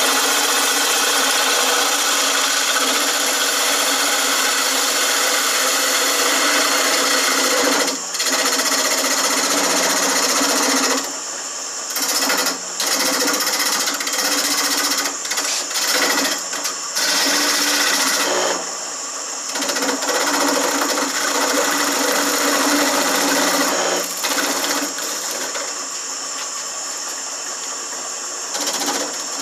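Shopsmith wood lathe running steadily while a hand-held turning tool cuts a spinning wooden spindle, making a loud scraping hiss. The cutting noise drops away several times as the tool comes off the wood, leaving the motor's hum.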